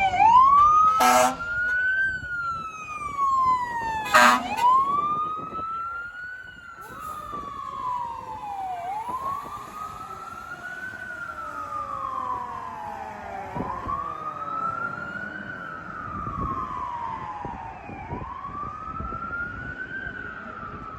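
Fire engine siren on a slow wail, rising and falling about every four and a half seconds, with two short horn blasts in the first five seconds. The siren grows fainter after about six seconds.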